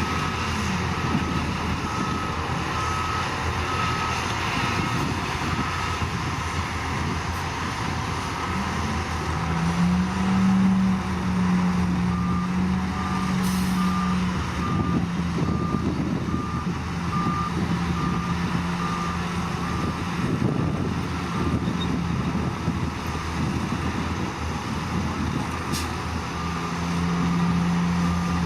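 Heavy diesel earthmoving machine running, with its reversing alarm giving steady, evenly spaced beeps at one pitch. The beeping stops for several seconds midway and then resumes. The engine note rises about nine seconds in.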